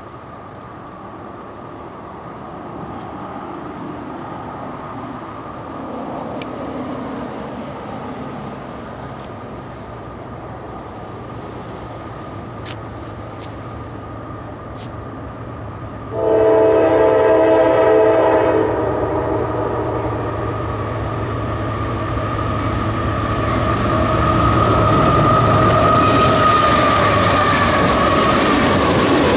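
Diesel-hauled freight train approaching, with a low engine rumble building. About 16 seconds in, the locomotive's multi-chime air horn sounds one long blast of about two and a half seconds. The locomotive then passes and freight cars roll by with wheel clickety-clack and a steady high ringing.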